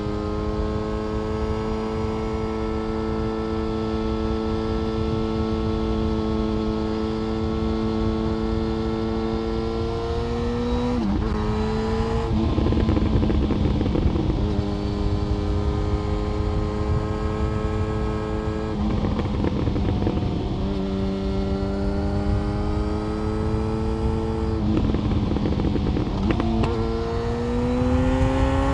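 Yamaha FZ1 Fazer inline-four engine through an SC-Project exhaust, holding steady revs under way. Three times the note briefly breaks off with a rough patch and picks up again, and near the end the revs climb.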